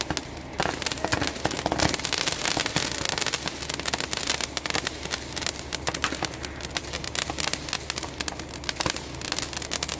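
Fireworks going off: a dense, continuous crackling of many small pops, with louder reports scattered through.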